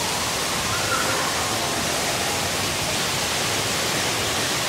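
A steady, even rush of noise with no distinct events, with faint voices in the background.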